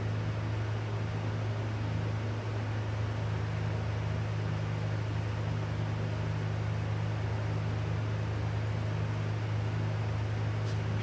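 Steady low hum with an even hiss underneath: constant room background noise.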